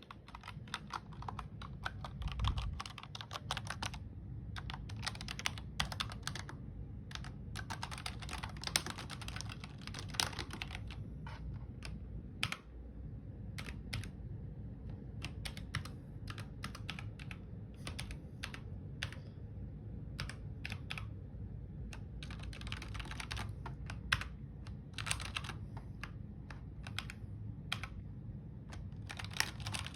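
Typing on a backlit computer keyboard: quick runs of keystroke clicks in bursts of a few seconds, broken by short pauses.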